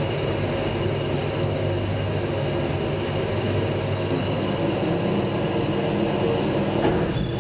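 Traction elevator car travelling in its shaft, heard from inside the car: a steady running hum with low drone tones and rumble, which changes briefly near the end.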